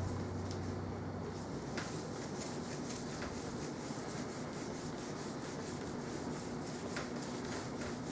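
Paper towel rubbing over a laptop's plastic lid in repeated wiping strokes, buffing off glass cleaner and oily residue.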